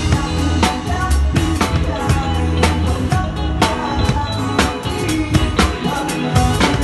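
A band playing a pop-rock song live, heard from beside the drum kit: close, loud drums, with kick and snare hits on a steady beat and cymbals over sustained bass and guitar parts.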